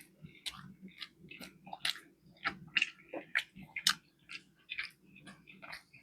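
Close-miked chewing of a fish fillet sandwich: irregular wet smacks and clicks of the mouth, a few a second.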